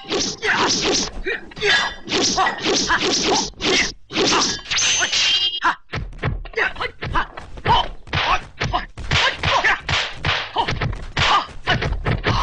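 Kung fu film fight sound effects: a rapid string of dubbed punch and weapon-strike whacks and thuds, about two or three a second. A couple of short metallic rings come in the first half.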